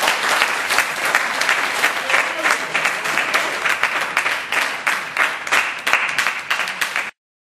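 A roomful of people clapping and applauding, dense and irregular; it cuts off suddenly near the end.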